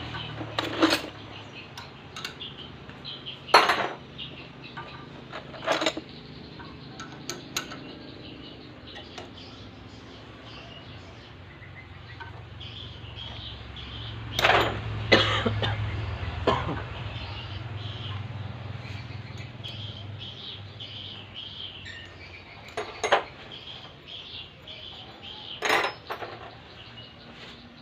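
Metal clinking and knocking of tools and parts being handled, a handful of sharp strikes a few seconds apart, over a low steady hum.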